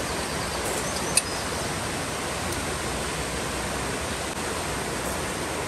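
Mountain stream rushing over rocks, a steady wash of water noise, with a single short click about a second in.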